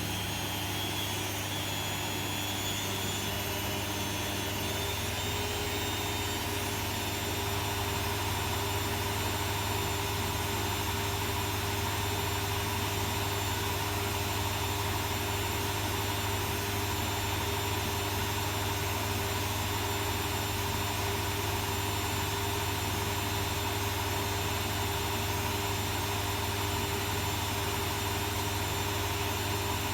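Arçelik 3650 SJ washing machine on its spin cycle with a heavy quilt inside: a steady motor hum and whine that holds an even pitch. A faint high whine fades out over the first several seconds.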